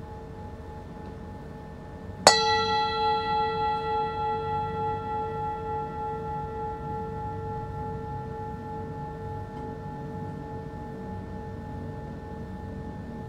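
A singing bowl struck once about two seconds in, ringing with several clear tones and a slow wavering beat as it fades gradually. A fainter ring at the same pitches carries on before the strike.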